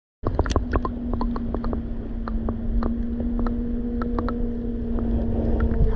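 Sound of lake water picked up underwater: scattered sharp clicks and pops over a low rumble, with a steady low hum starting about a second and a half in.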